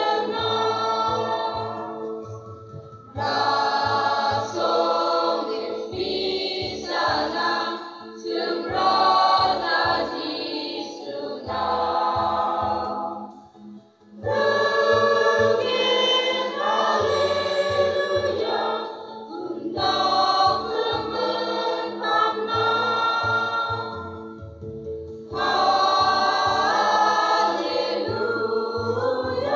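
A choir singing together in phrases, with brief pauses between phrases; the longest break comes about halfway through.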